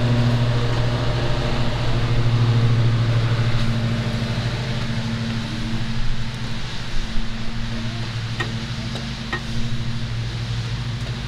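Steady low mechanical hum of a running machine, easing slightly a few seconds in. Over it come a few light clicks as the cast aluminium cylinder head is handled and seated onto the engine block.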